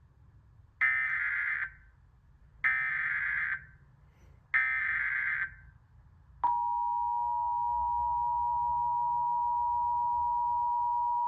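Emergency Alert System tones for a tornado warning. Three data bursts of about a second each make up the SAME digital header, then about six and a half seconds in the steady two-tone attention signal starts and holds.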